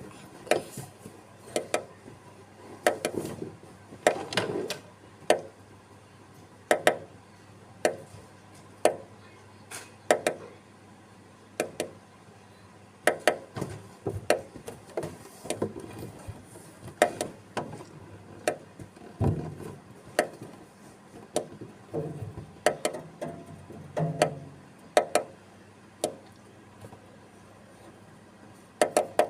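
A ciblek, a small prinia, pecking at a window pane: quick sharp taps on the glass in irregular clusters of a few strokes, repeated over and over.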